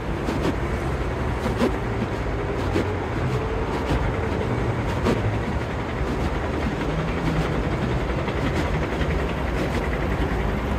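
Steady rumble of a moving train, with a few faint clicks.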